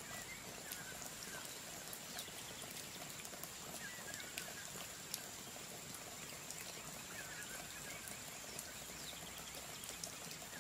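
Caramel-coated bread cubes sizzling and crackling in a frying pan as they are stirred with a wooden spatula, a steady patter of small crackles and clicks. A few faint, short high chirps come through it.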